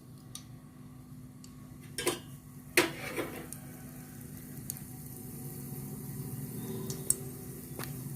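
Mustard seeds sizzling in hot oil in a kadhai, the sizzle slowly growing, with a few sharp clicks; the loudest come about two and three seconds in. This is the tempering (tadka) stage, as the seeds heat up to crackle.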